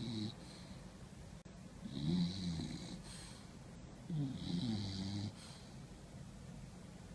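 Bulldog snoring, a pitched snore every two and a half seconds or so: the end of one right at the start, then two full snores of about a second each.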